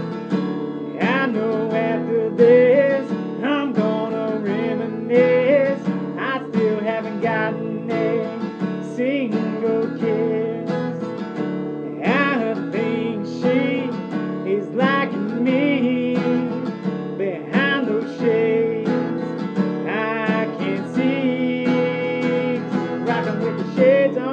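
Cutaway acoustic guitar strummed in a country-style instrumental break. Wordless vocal lines are sung over it in places.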